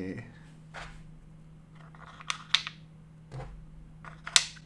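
Wooden blocks of a packing puzzle knocking and clicking against each other and the wooden box as they are slid and pressed into place. A few separate clacks, a quick pair about two and a half seconds in, and the sharpest one near the end.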